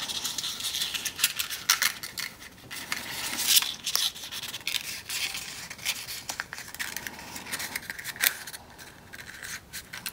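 A sheet of white paper rustling and crinkling as it is rolled by hand into a cone, with many small sharp crackles.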